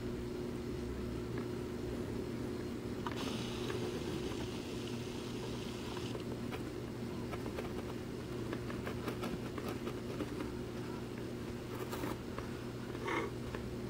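Steady low electrical hum of aquarium equipment, with a brief hiss about three seconds in and a few light clicks later.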